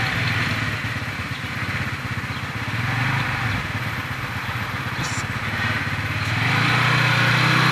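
A 125cc scooter's small single-cylinder engine running slowly, growing louder again about six and a half seconds in.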